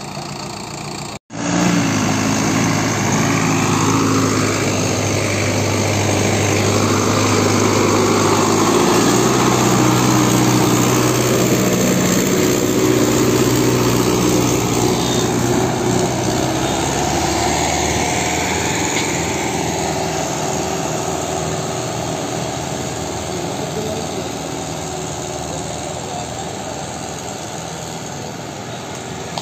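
Solis 5724 tractor's diesel engine running under load as it pulls a disc harrow through wet soil, passing close and then fading as it moves away. The sound cuts out for an instant about a second in, and the engine note steps up slightly near the middle.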